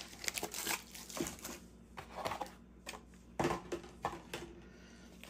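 Beyblade booster packaging being handled by hand: scattered rustling and crinkling with light clicks, two sharper ones a little past the middle.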